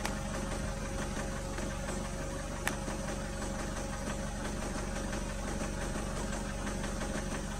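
A vehicle engine idling steadily, with one sharp click about two and a half seconds in.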